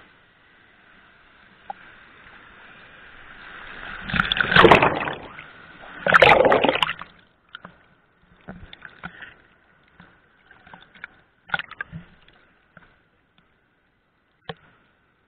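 Water sloshing and splashing, building to two loud rushes of water about four and six seconds in, followed by scattered small splashes.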